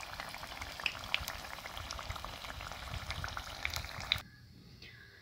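Besan-battered potato slices deep-frying in hot oil on a low flame: a steady sizzle dotted with small pops and crackles, which cuts off suddenly about four seconds in.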